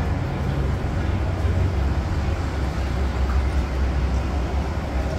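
A steady low rumble, even in level, with no distinct taps or knocks on top.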